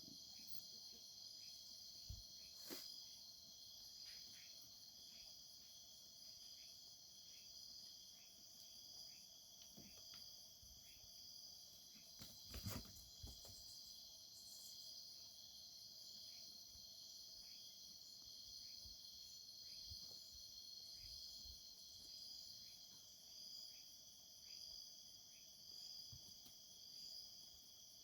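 Night countryside insect chorus: crickets trilling steadily and faintly, with short quieter chirps repeating about once a second underneath. A soft knock comes a few seconds in and another near the middle.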